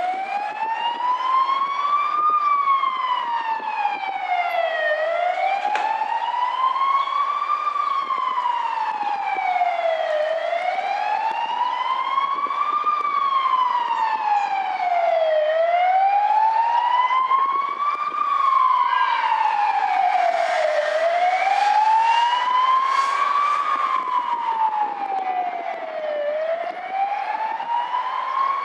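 Fire engine siren wailing, rising and falling slowly about once every five seconds.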